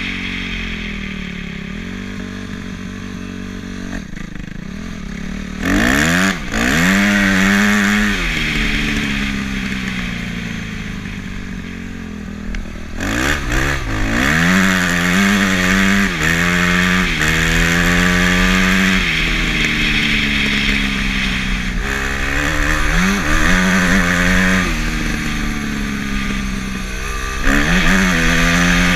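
Dirt bike engine being ridden hard, its pitch climbing in several sharp sweeps as the throttle is opened through the gears, then settling back to a steadier drone between them.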